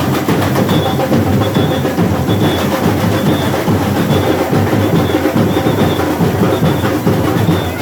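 Samba carnival drum section (bateria) playing a steady, driving rhythm on massed drums, with a short high note recurring about every two-thirds of a second.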